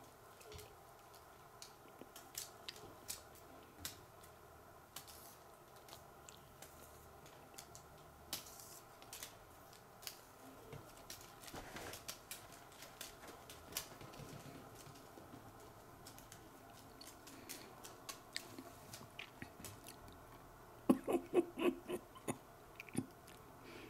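Scattered light taps and clicks from a dangled cat wand toy brushing the wooden floor, then, about 21 seconds in, a quick run of louder crunchy clicks as the cat bites and chews the toy, over a faint steady hum.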